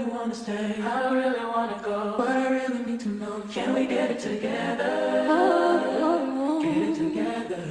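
Background music: a song carried by layered singing voices with little accompaniment.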